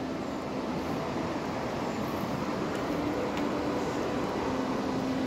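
Steady rushing of shallow river water flowing around the wader.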